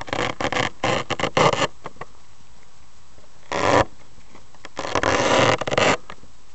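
Irregular bursts of rustling, buffeting noise on the glider's onboard camera microphone: a cluster at the start, a short burst about halfway through and a longer one near the end.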